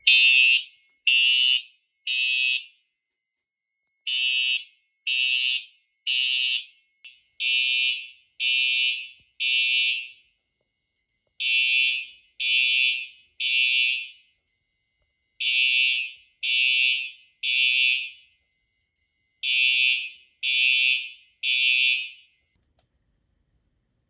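Simplex TrueAlert fire alarm horns sounding the temporal-3 evacuation pattern: groups of three short blasts with a pause after each group, repeated six times, then stopping near the end. A faint steady high tone runs underneath.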